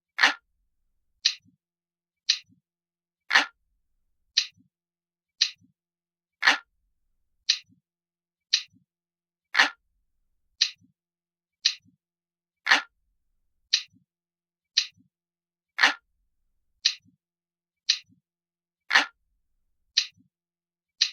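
Clock ticking steadily, about one tick a second, with every third tick fuller and lower than the two between.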